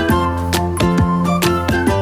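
Background music: plucked and sustained instrument notes over a steady beat.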